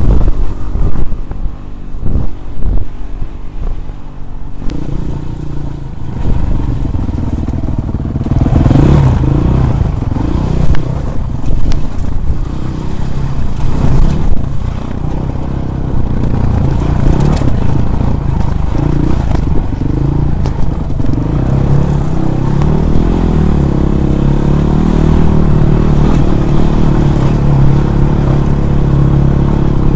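Dirt bike engine running and revving on a rough, rocky climb, its pitch rising and falling, with knocks and rattles from the bike jolting over rock. The sound is choppy and uneven for the first few seconds, then the engine runs steadily under load.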